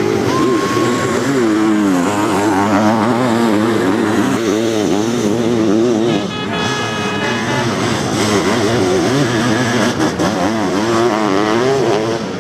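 Sidecar motocross outfits racing, their engines revving up and easing off over and over as they take the corners, with more than one engine heard at once.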